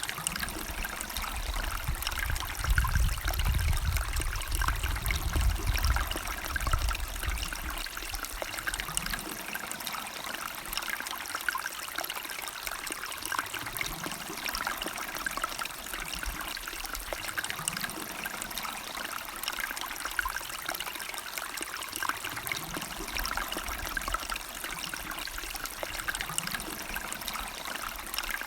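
A river or stream trickling and splashing steadily over stones. A low rumble rises under the water from about two seconds in and fades by about seven seconds.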